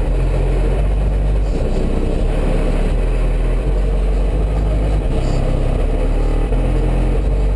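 Car audio subwoofers playing very loud deep bass in a timed bass race round. A steady low bass note runs under shifting notes a little higher up that change every second or so.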